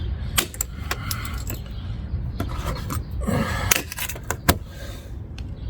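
Irregular clicks and short scrapes of a hand tool such as a putty knife working at a car's quarter window and its old seal material, with one longer scrape a little over three seconds in.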